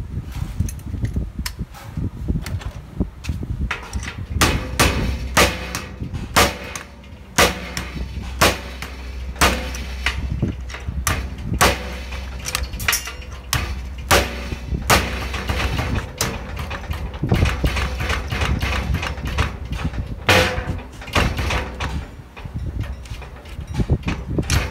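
Irregular metallic knocks and clanks from a rod gripped in locking pliers being worked, twisted and levered in a hole drilled through a steel safe door, a forced attempt to defeat the safe's locking bolt. About one or two sharp knocks a second, over a steady low hum.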